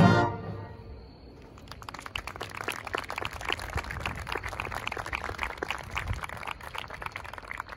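Marching band music cuts off and dies away within about a second, then scattered audience applause of many separate hand claps starts about a second and a half in.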